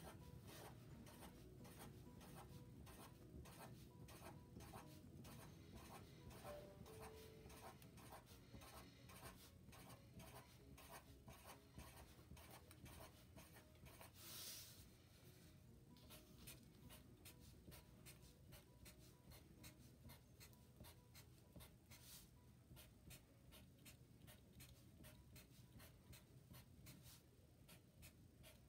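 Faint scratching and tapping of a black Sharpie marker on paper in many quick short strokes as small loops are drawn, with one brief louder hiss about halfway through.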